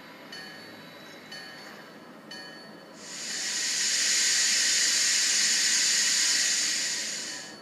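Sound-decoder steam effect from an HO scale model steam locomotive standing still: a loud hiss of steam being let off swells in about three seconds in, holds, and fades out near the end. Before it, faint ticks come about once a second.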